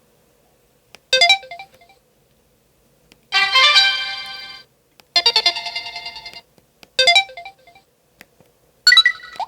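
Samsung Anycall V840 mobile phone's built-in notification and effect tones, five short electronic jingles of bright chiming notes played one after another with brief silences between.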